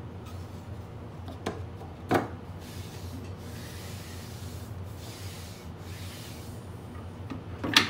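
A CNC-cut zero clearance throat plate dropped into a table saw's insert opening with a knock, then a palm rubbing and pressing across the plate and the saw table. A sharper knock comes near the end.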